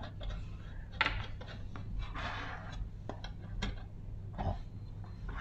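Small metal clicks and light scraping as fingers thread a small fastening screw into the handle of a model steam engine. The clicks are scattered, a few clustered about three seconds in.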